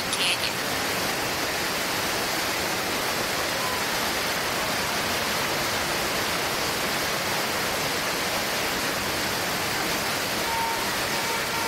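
Steady rush of flood water pouring down the canyon set, an even noise that holds at one level.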